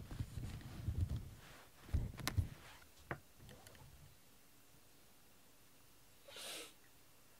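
A cat rubbing and bumping against the microphone, giving muffled low thumps and rustling with a couple of sharp clicks over the first two or three seconds. Then the room goes quiet except for one short hissing rush of noise near the end.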